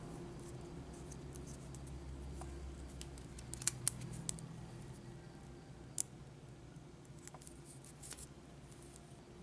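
Enamelled copper wire being wound by hand onto a coil bobbin: scattered light clicks and scratches of the wire and fingers on the spool, with a few sharper clicks in the middle. A steady low hum runs underneath.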